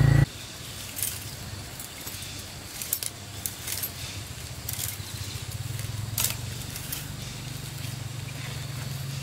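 A steady low hum, like a small motor or engine running, with scattered sharp clicks and taps. The hum grows a little louder about halfway through.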